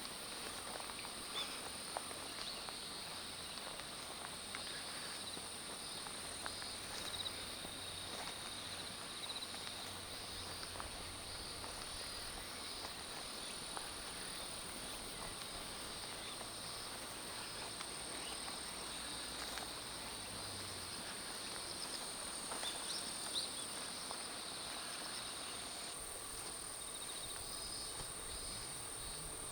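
Insects chirring steadily in fields: one continuous high trill and a lower, pulsing trill, with a few faint clicks.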